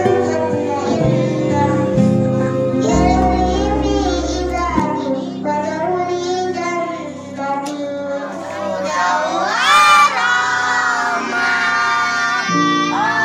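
Music: a child's voice singing a slow, gliding melodic line over an instrumental backing, with a low steady bass note under roughly the first five seconds.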